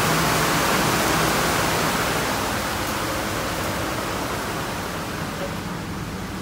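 Steady rushing machinery noise with a low hum from a standing passenger train, growing gradually fainter as the listener steps from the coach's end door into the carriage.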